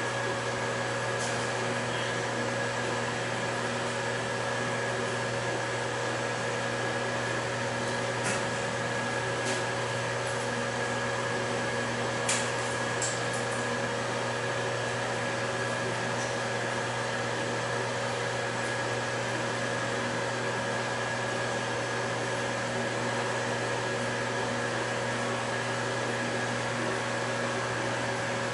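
Steady machine hum with a constant pitched drone and hiss, from the running still and its equipment, broken by a few faint ticks.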